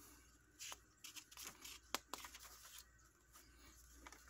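Pages of a small paper instruction booklet being turned and handled: faint paper rustles and a few light flicks, the sharpest about two seconds in.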